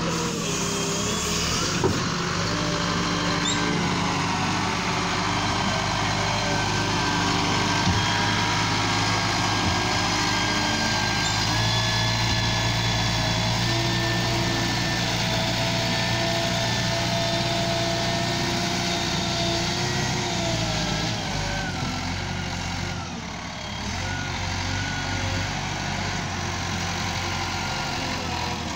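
Liebherr L554 2plus2 wheel loader's diesel engine running steadily under load as the machine drives and works its bucket in dirt, with a whine that rises and falls in pitch now and then.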